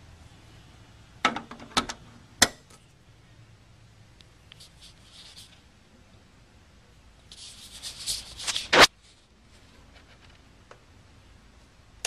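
Handling noises: three sharp knocks or clicks about a second or two in, then rustling and scraping for about a second and a half that ends in one loud knock.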